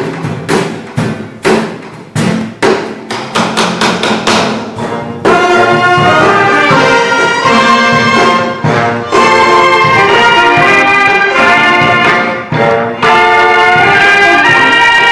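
Amateur ensemble of recorders and trumpets playing. It begins with quick, repeated struck notes, and about five seconds in the recorders and trumpets come in together, playing a melody in held notes.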